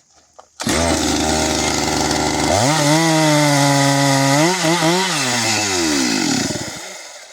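Stihl MS 462 two-stroke chainsaw starting abruptly and running loud at high revs; about two seconds in its pitch jumps higher, wavers briefly, then falls away as the engine winds down and stops near the end.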